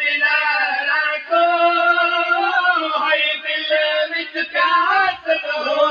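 Male voice chanting a noha, a Shia lament, unaccompanied, in long drawn-out and gliding notes.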